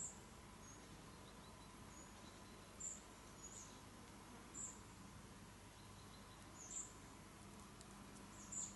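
Near silence, with a small bird's short, high-pitched chirps every second or two.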